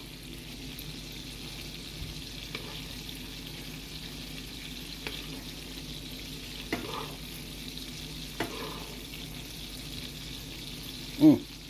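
Porterhouse steak sizzling steadily in brown garlic butter in a nonstick skillet as it is basted with a spoon, with a few light clinks of the spoon against the pan. A brief louder pitched sound near the end.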